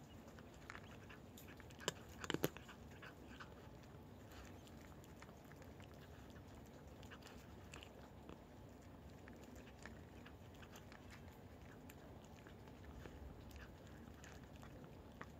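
Cats crunching dry kibble: faint, irregular crunches and clicks, with a short run of sharper, louder crunches about two seconds in.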